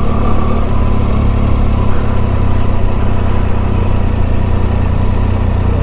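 Motorcycle engine running steadily at low speed, heard from on the bike, a constant low hum with no revving.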